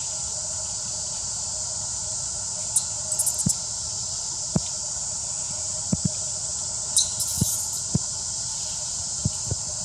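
Outdoor forest-floor ambience: a steady high hiss, with scattered soft knocks and two brief crackling rustles about three and seven seconds in.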